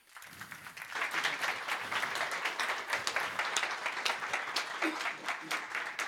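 Audience applauding, building up within the first second and holding steady. A few voices can be heard faintly near the end.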